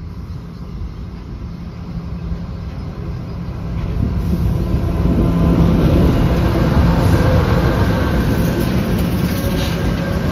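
Two Pacific National NR class (GE Cv40-9i) diesel-electric locomotives approaching and passing close by. Their engines' low, steady drone grows louder over the first four seconds and stays loud as they go past.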